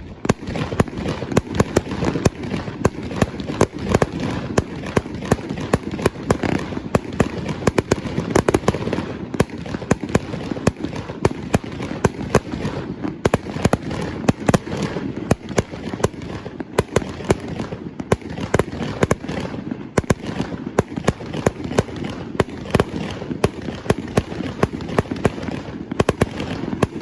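Fireworks display going off in a rapid, continuous barrage: sharp bangs and crackle several times a second with no pause.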